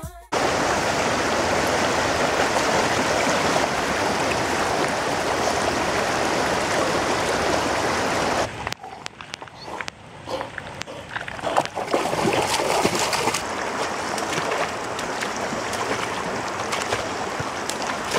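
River water rushing steadily for the first half. After a cut it is calmer, with dogs swimming and splashing in it: irregular splashes and paddling.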